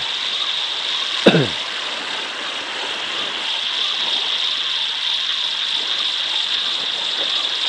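Spinning fishing reel being cranked steadily to retrieve a long-cast line: a continuous, fast whirring of the reel's gears. About a second in, a short sound slides quickly down in pitch.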